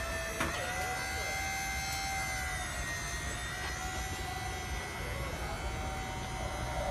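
Motor of a concrete wall panel lifting machine whining steadily over a low rumble as it raises a panel up the mast, with one click about half a second in.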